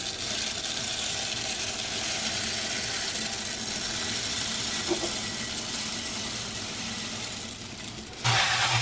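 Piñon nuts in their shells pouring in a steady stream from a cloth sack into a glass bowl, a continuous dry rattle of small hard nuts against the glass. About a second before the end a louder rush with a low hum takes over: the kitchen tap running.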